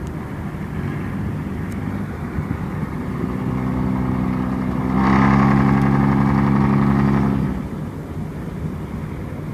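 An engine running at a steady pitch over a continuous rumble. It grows louder a little past the middle, holds for about two seconds, then drops away.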